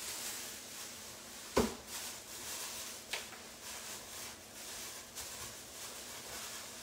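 Pots simmering on the stove with a steady hiss, broken by one sharp knock about a second and a half in and two lighter clicks, around three and five seconds in.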